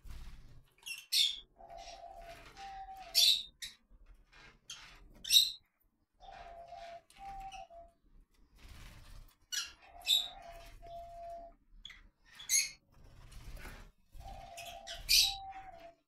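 Rosy-faced lovebirds giving short, shrill high-pitched calls, about seven of them scattered a second or more apart.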